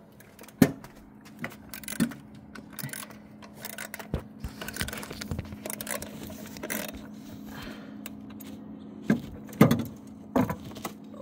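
Irregular metal clicks, clinks and knocks of hand tools and parts being handled in a car's engine bay while bolts on the EGR valve are worked at, over a faint steady hum. The sharpest knocks come about half a second in, around two seconds in, and near the end.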